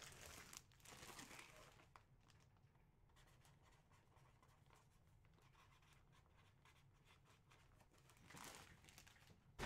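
Faint crinkling of a plastic bag as a bagged jersey is picked up and handled, mostly in the first two seconds, with another brief rustle near the end; otherwise near silence.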